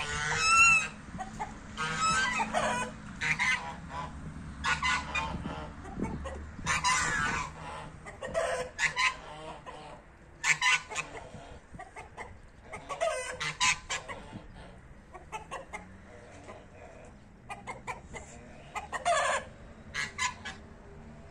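Chickens clucking and calling in short, repeated bursts every second or two, some calls dropping in pitch, with quieter gaps between.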